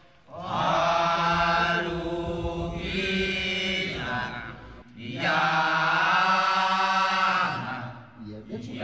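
Background music of traditional Balinese Kecak chanting: a voice sings two long, held phrases.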